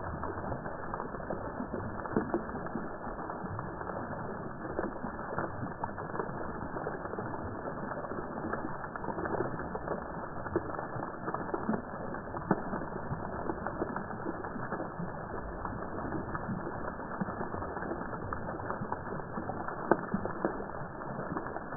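Fountain water splashing into its basin, the sound slowed down with the slow-motion picture so that it is dull, with no highs. It is a dense, steady patter of droplet impacts, with a few louder splashes: about 2 seconds in, midway, and near the end.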